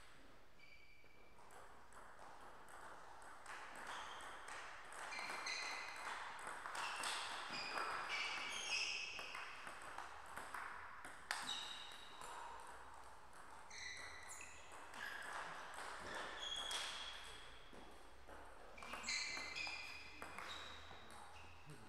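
Table tennis balls bouncing off bats and tables: a steady run of short, ringing pings. They come from the rally on this table, with the pings of rallies at other tables in the hall mixed in.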